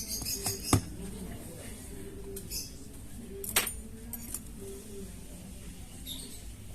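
Light metallic clinks and taps of small tools and parts being handled on a repair bench: a quick cluster in the first second, then one sharper clink about three and a half seconds in.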